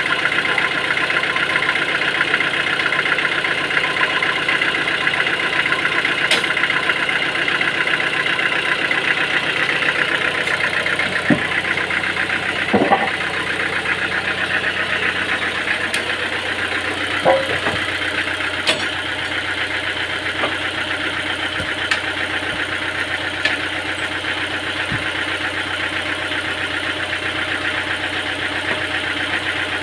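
Sawmill machinery running steadily with a droning mechanical hum; the low part of the hum eases about ten seconds in, and a few sharp knocks sound over it.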